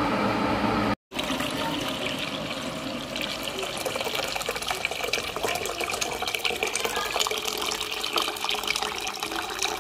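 Freshly boiled water poured from an electric kettle into a stainless steel pan, a steady splashing pour. It follows an abrupt cut about a second in from the kettle's steady boiling rumble.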